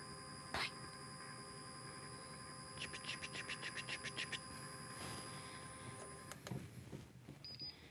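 Nova Viking benchtop drill press's direct-drive motor running very quietly, a faint steady high whine that cuts off about six seconds in. A quick run of faint ticks comes midway, and a short high beep comes near the end.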